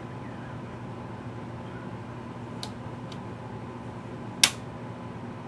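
Front-panel storage switches of a Tektronix Type 564 storage oscilloscope being flipped: two faint clicks a little past halfway, then one sharp, louder click near the end. A steady low hum runs underneath.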